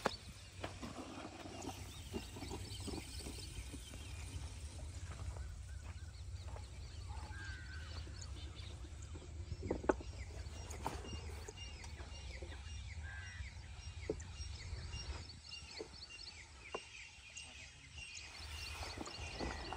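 Birds chirping over a steady low rumble of wind in open farmland, with a few sharp knocks and rustles from the flat plastic irrigation pipe being handled, the loudest about halfway through.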